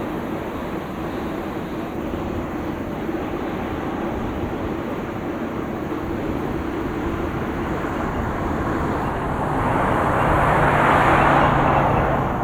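Steady jet engine noise from airliners idling and taxiing at the airport. About ten seconds in, a louder passing sound swells up and fades again near the end.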